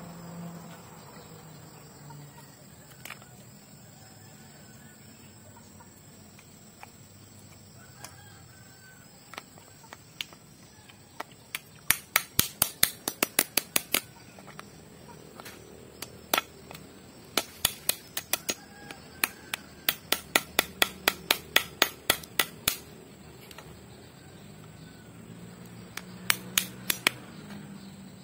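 Rapid runs of sharp taps as a knife blade strikes a cooked mud crab's claw against a wooden board to crack the shell, about six taps a second, in several bursts starting about halfway through.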